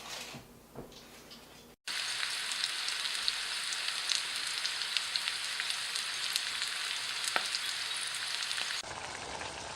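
Food frying in a hot pan: a steady sizzling hiss dense with small crackles and pops. It starts abruptly about two seconds in after a few faint light knocks, and its tone changes slightly near the end.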